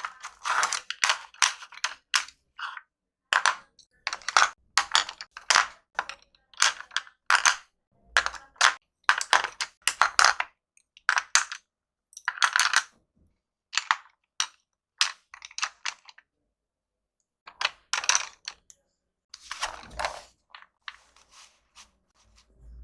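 Wooden colored pencils clicking and rattling against one another as they are handled and sorted, in quick clusters of light clicks with a short pause about two-thirds of the way through.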